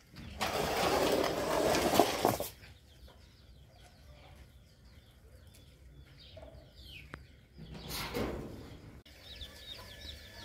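Faint short bird calls, like farmyard fowl clucking, go on in the background. They are broken by a loud rush of noise for about two seconds near the start and a shorter one near the end.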